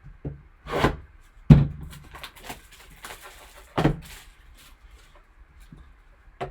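Hands handling boxes and packaging on a tabletop: a few knocks and thumps, the loudest about one and a half seconds in, with a brief rustle around the middle.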